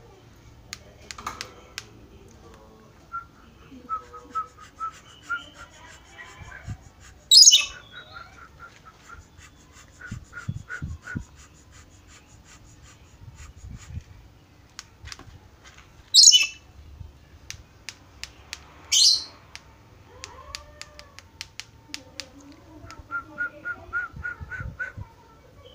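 A caged lorikeet screeching: three loud, shrill calls spaced several seconds apart, with runs of quick, evenly repeated chirping notes in between.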